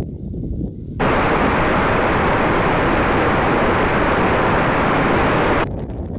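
A steady, loud rushing hiss with no clear tone, from the box-wing FPV airplane's onboard footage in flight, cutting in sharply about a second in and cutting off sharply near the end. Before and after it, a low wind rumble.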